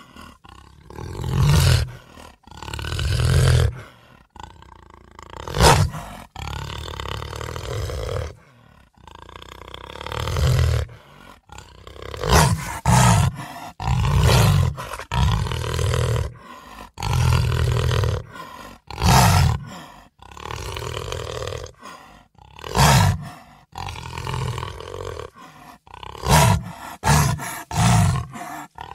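Hellhound monster sound effect: a long run of deep, guttural growls and roars, one after another with short pauses, and a few sharper, louder bursts among them.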